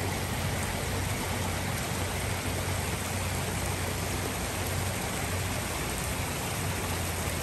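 Steady rush of water spilling over rocks in a small landscaped stream, with a low steady hum underneath.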